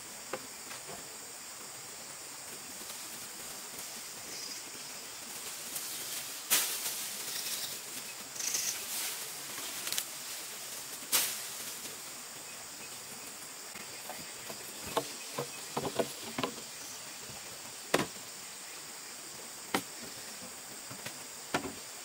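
Steady high-pitched insect chorus, with scattered sharp knocks and clatters of bamboo poles being handled against a bamboo frame and ladder.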